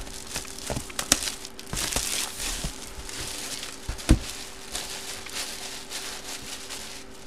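A sealed cardboard jersey box being handled and turned over in the hands: cardboard rustling, scraping and small taps, with a dull knock about four seconds in.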